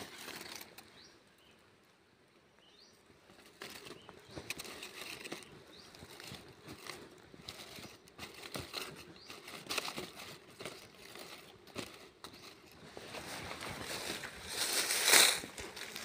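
Dry leaves and twigs rustling and crackling with scattered light clicks as hands work on the leaf-littered forest floor; the rustling grows louder near the end as the person moves through the undergrowth.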